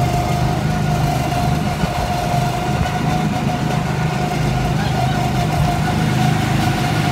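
Two-seat go-kart's engine running steadily as the kart drives along the track, a low drone with a steady whine over it.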